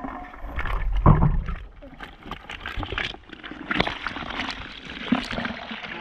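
Wet mud and live fish tipped out of a bucket onto a mesh net: sloshing and splattering with many small slaps and rustles, and a louder thump about a second in.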